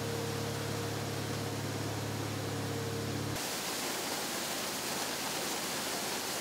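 Steady rush of water gushing from a pipe, under the low steady hum of an engine; a little over three seconds in, the hum cuts off abruptly and only the rushing water goes on.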